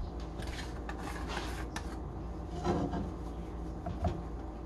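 Seasoning containers and kitchen utensils being handled: soft scraping and rubbing with a few small clicks, over a steady low hum.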